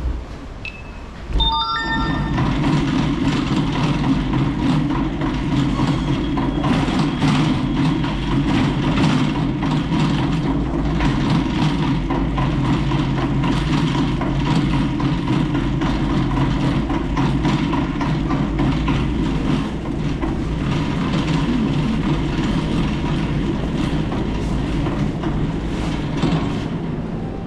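Metal shopping trolley rolling over a tiled floor, its wheels rumbling and its wire basket rattling steadily after a few short tones about a second in.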